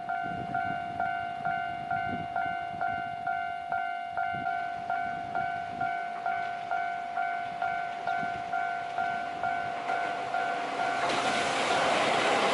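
Japanese railway level-crossing alarm ringing its "kan-kan" bell about twice a second. From about ten seconds in, the noise of an Ohmi Railway train arriving at the crossing builds and drowns the bell.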